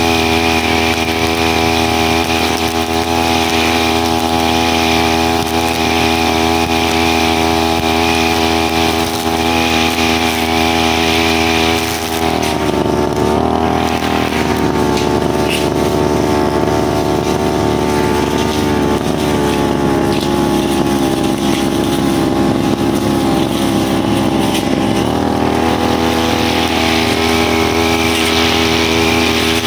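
A brushcutter's small petrol engine running steadily while sweeping dry leaves off a road. Its note changes about twelve seconds in and goes back to the first note near the end.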